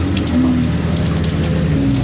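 Heavy rain spattering on wet tarmac, with a Pagani Huayra's twin-turbo V12 running at low speed under it, its pitch stepping up and down as it rolls past.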